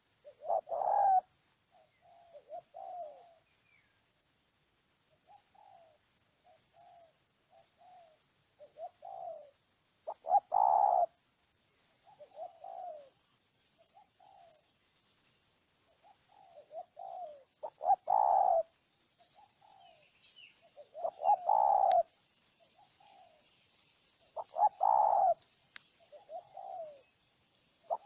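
Spotted dove cooing in repeated phrases of low, hooting notes, some soft and some loud. Small birds chirp faintly and continually in the background in short high notes.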